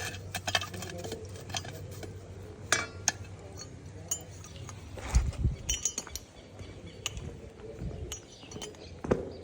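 Parts of a seed drill's fertilizer metering unit clinking and knocking as they are handled and fitted together, with a few heavier thumps about five seconds in.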